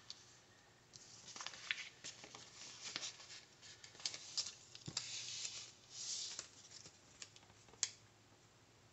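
Paper sticker sheets rustling faintly as they are shuffled and laid out by hand, with a few light ticks and taps; near the end a sticker is pressed down onto a planner page.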